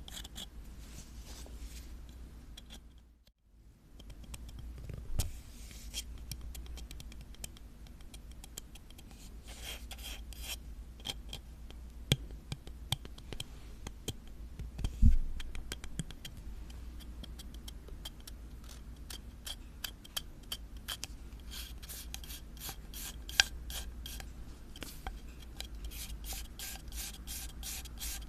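Close-miked ASMR scratching on an object: a run of short scratches and clicks, with a brief break about three seconds in, a couple of louder knocks around the middle, and quick, dense strokes near the end.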